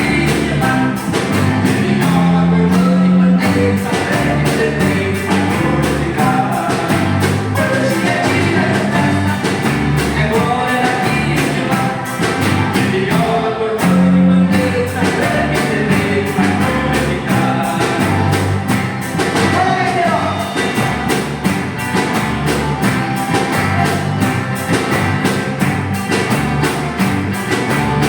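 Christian rock band playing a song, a singer's voice over a steady drum beat and band accompaniment.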